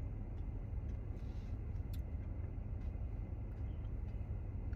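Steady low rumble inside a car cabin, with a few faint clicks from the plastic fork and pudding cup.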